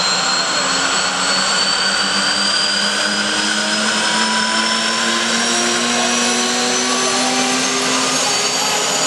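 Aérospatiale SA 342 Gazelle helicopter's Astazou turboshaft engine and rotors running on the ground: a steady rush with a high turbine whine that slowly rises in pitch, as the engine and rotor speed up.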